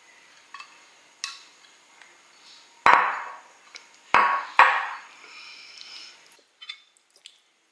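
Metal kitchen tongs knocking against a ceramic bowl and plate while serving meatballs: a few sharp clacks, the loudest three about three, four and four and a half seconds in.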